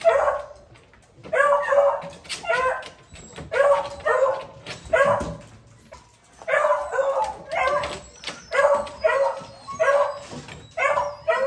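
Beagles barking in short, repeated calls, several in quick succession, with a lull of about a second and a half midway.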